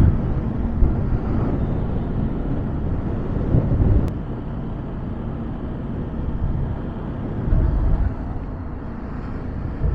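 Motorcycle riding along the road: a steady engine hum under heavy rumbling wind and road noise, swelling louder twice.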